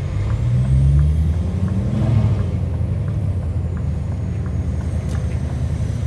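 Scania R730's 16.4-litre V8 diesel running as the truck drives, its note rising through the first second and easing back about two seconds in, with faint regular ticks about every 0.7 s.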